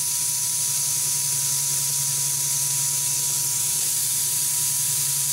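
Raw hamburger patties sizzling on the hot grill plate of a Power Smokeless Grill, a steady hiss, with the grill's fan humming underneath.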